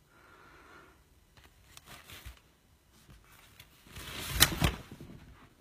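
A quiet room, then about four seconds in a short burst of rustling with sharp clicks and clatter, lasting under a second.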